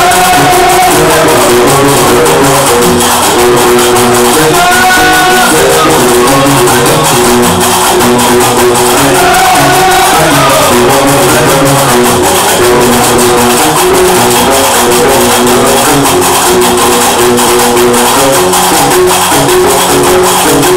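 Loud live Algerian diwan (gnawa) music. A guembri plucks a repeating bass figure under the steady fast clatter of qarqabou iron castanets, with voices singing.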